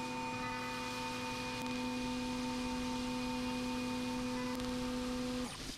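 CNC milling machine cutting aluminum bronze bearing blocks under flood coolant: a steady, even-pitched whine from the spinning cutter in the cut, which stops suddenly near the end.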